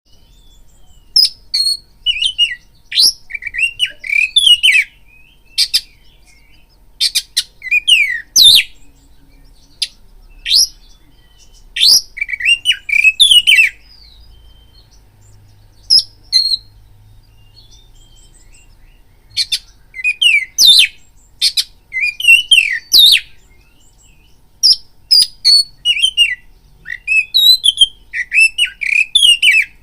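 Oriental magpie-robin singing in loud bouts of quick, sweeping whistled notes mixed with sharp clicks. The bouts are split by short pauses, with a longer pause about halfway through. It is a lure song, used to rouse magpie-robins into fighting mood and song.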